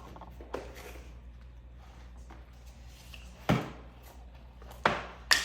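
Several separate knocks and thuds of objects being handled and set down, the loudest about three and a half seconds in and two more near the end, over a low steady hum.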